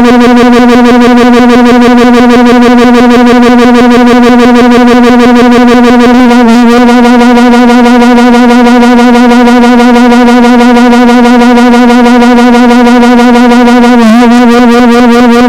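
Loud, sustained electronic synthesizer tone holding one steady pitch, with a brief wobble in pitch about six seconds in and again near the end.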